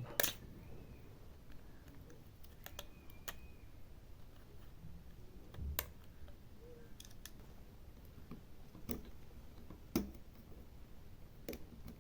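A handful of small, sharp, separate clicks and taps of tools and plastic parts as the plastic cover at the top of a phone's opened frame is worked loose.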